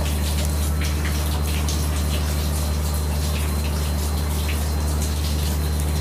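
A steady low mechanical hum, like a motor running, with faint short high-pitched ticks scattered through it.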